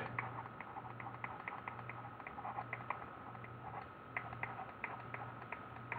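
Faint, quick ticks of a stylus tapping and dragging on a tablet while handwriting, about three or four a second and unevenly spaced, over a steady electrical hum.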